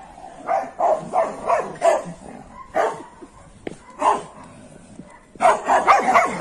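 Dog barking: short, separate barks through the first few seconds, then a fast run of barking from about five and a half seconds in.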